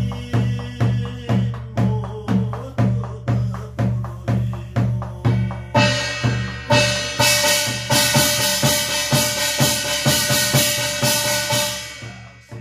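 Korean barrel drum (buk) beaten with a stick in a steady beat of about two to three strokes a second, accompanying a gosa chant. About six seconds in a bright metallic jangling joins the drum and stops again near the end.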